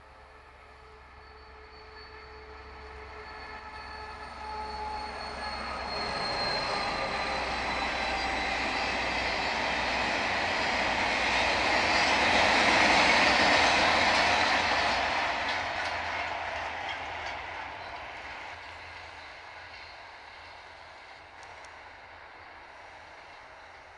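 A freight train hauled by an SNCF BB 67400 diesel locomotive approaches and passes. The locomotive's steady tones come first, one high tone slowly falling in pitch, then the rolling noise of the wagons swells to its loudest about halfway through and fades away.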